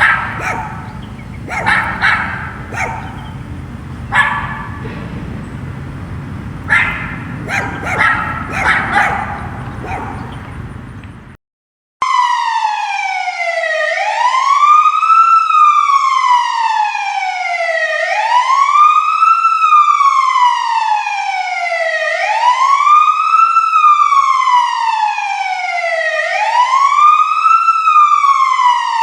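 Dog barking repeatedly in irregular bursts. The barking cuts off about eleven seconds in, and after a brief silence a wailing emergency-vehicle siren starts, its pitch rising quickly and falling slowly about every four seconds.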